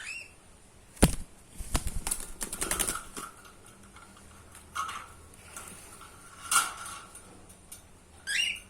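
A small parrot gives short rising chirps at the start and again near the end; in between come sharp taps and a rapid run of clicks and rattles, about a second in and from roughly 1.7 to 3 seconds, with single taps later.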